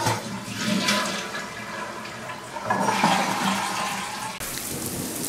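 A toilet flushing, the water rushing for about four seconds.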